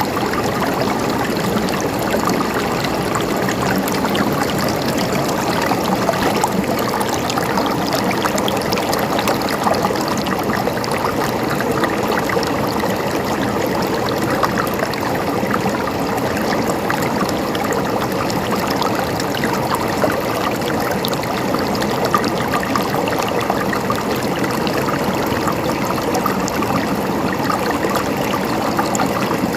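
River water flowing over rocks: a steady rush with small splashes and trickles running through it.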